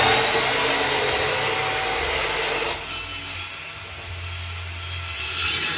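Handheld angle grinder with its disc on a steel bar: a loud harsh grinding hiss with a high motor whine for about three seconds, then lighter and quieter contact that builds again near the end.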